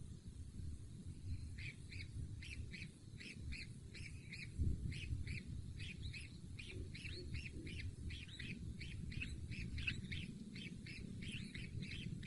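A bird giving short chirps in a steady series, about three a second, starting about a second and a half in, over a low rumble with one thump about four and a half seconds in.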